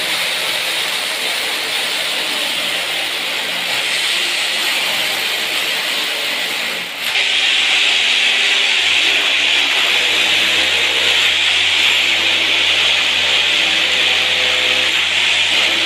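Corded electric drill boring into masonry where the floor meets the wall, running continuously. It stops briefly about seven seconds in, then runs again, louder.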